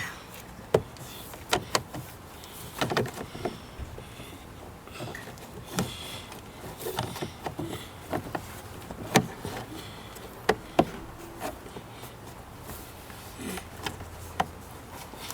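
Scattered sharp clicks and knocks from a Honda Civic door trim panel being handled and pushed back onto the door.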